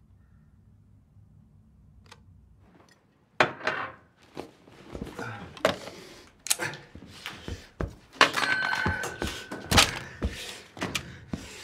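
Quiet for about three seconds, then a rapid, irregular series of loud thuds and crashes with breaking, as objects are smashed and knocked onto the floor.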